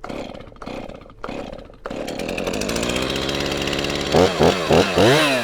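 Two-stroke chainsaw being started: a few short pulls, then the engine catches about two seconds in and runs. Near the end it is revved up and down several times.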